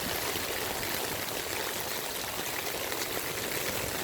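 Rainwater running steadily as it drains off a flooded yard through a shallow dug trench.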